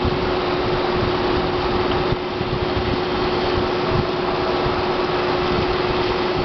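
CNC centerless grinder running: a steady machine hum with one constant tone under a dense hiss, dipping slightly about two seconds in.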